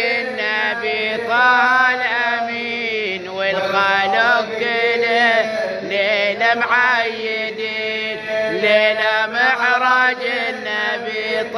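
A voice chanting a long, wavering, ornamented melodic line over a steady held drone. This is the opening of a Shia religious chant (latmiya) by a radood.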